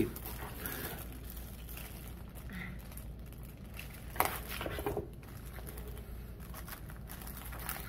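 Clear plastic packaging bag crinkling as it is handled and opened, with a few sharper rustles about four and five seconds in.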